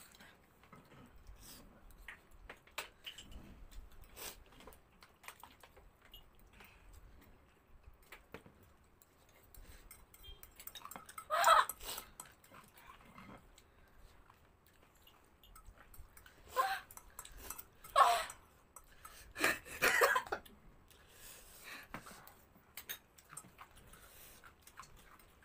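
Fork and spoon clinking and scraping on glass plates, with chewing, broken by a few short, loud outbursts of breath from a diner struggling with the chili heat: one about eleven seconds in, two close together around the middle and one more a couple of seconds later.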